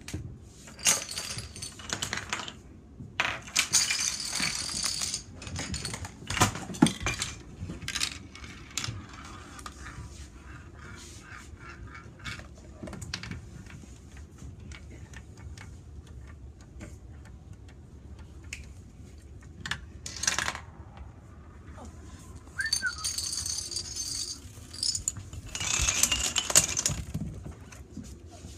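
A tabletop chain-reaction contraption of dominoes, wooden blocks and balls running: bursts of rattling clatter with sharp clicks and knocks between them, and a quieter stretch in the middle.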